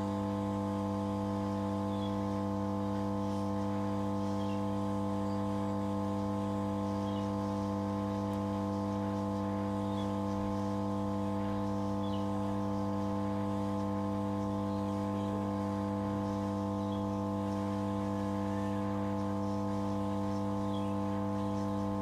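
Hot-air rework station blowing hot air onto a phone circuit board, heating the solder of the charging jack to remove it. Its blower makes a steady, even hum.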